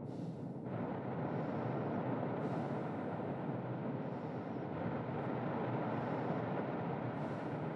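Mixed storm ambience: a steady, dense rumble of wind and rain, with soft hissy breaths of a sleeper swelling and fading every second or two.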